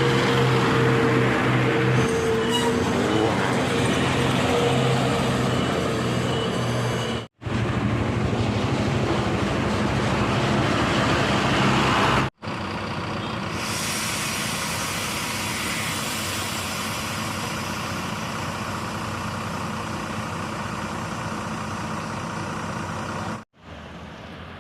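Tour bus engines running as the buses pass, across several short clips joined by abrupt cuts.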